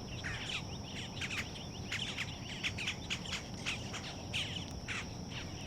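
Wild birds chirping: many short, quick falling chirps, several a second, over a steady high-pitched drone of insects.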